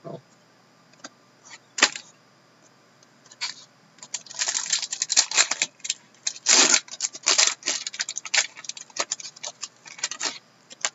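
Hockey card pack wrapper crinkling and tearing as the pack is opened: a few light clicks, then about six seconds of dense crackling starting about four seconds in.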